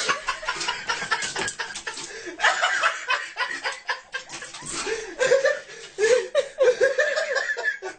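A person laughing in short repeated bursts that grow stronger in the second half, over many sharp clicks and knocks.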